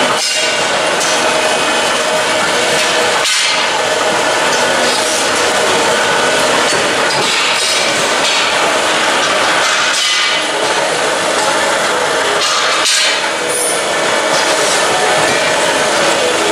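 Busy metal workshop din: a loud, steady mix of tool noise and metal work on steel tubing, with no one speaking over it.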